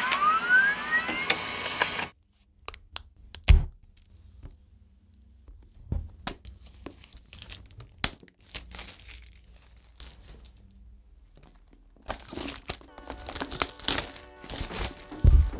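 A short music sting with a rising whoosh opens, then plastic shrink-wrap film on a new tablet box is torn and peeled off. There are scattered light clicks and rustles at first, and dense crinkling and tearing over the last few seconds.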